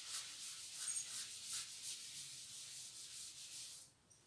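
A chalk blackboard being wiped with a hand-held duster: a hissing scrub of quick repeated rubbing strokes that stops a little before the end.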